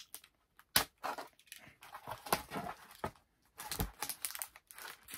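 Plastic comic bag and backing board being handled while a comic taped to the board is worked free: irregular rustling, crinkling and scraping with a sharp tick about a second in.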